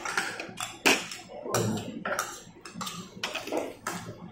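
Spoon clinking against ceramic bowls and dishes: a run of sharp separate clinks, the loudest about a second in.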